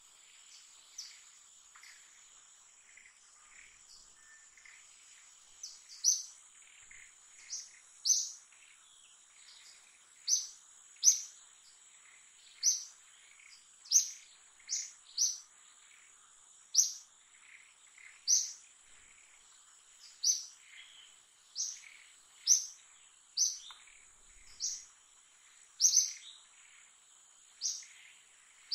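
A bird calling with short, sharp, falling chirps, repeated about once a second from about six seconds in, over a steady high-pitched insect drone.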